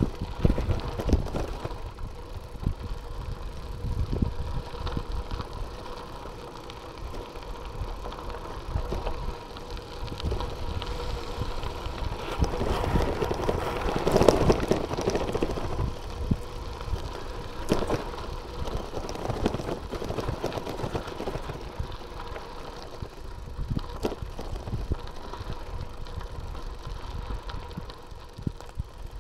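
Bicycle riding over a gravel mountain track: rolling tyre noise with frequent small rattles and knocks. It grows louder for a few seconds in the middle.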